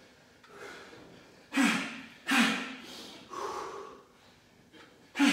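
A man breathing out hard in short, forceful breaths with a slight voiced grunt, several spaced about a second apart with a longer gap near the end: effort breathing timed to the reps of a dumbbell crunch-and-punch core exercise.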